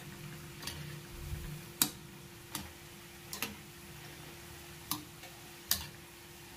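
Wire spider skimmer clicking against a steel kadhai as mathri are stirred in hot oil: about six sharp ticks at irregular intervals over a faint steady frying sizzle.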